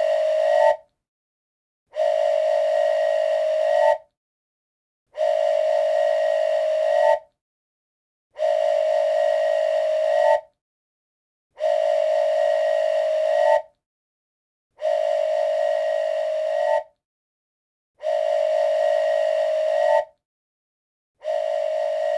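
A short recorded clip looping in playback: a loud, steady pitched tone with many overtones, in blasts of about two seconds each, one every three seconds or so, eight times. Each blast ends with a brief higher note.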